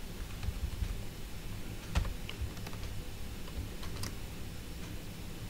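A few scattered keystrokes on a computer keyboard, the loudest about two seconds in, over a low steady hum.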